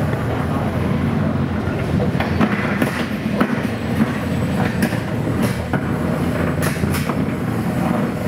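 Beetleweight combat robots fighting in a small boxed arena: a steady low drone of spinning weapon and drive motors, broken by irregular sharp clanks and clatters as the robots hit each other and the arena walls, several times.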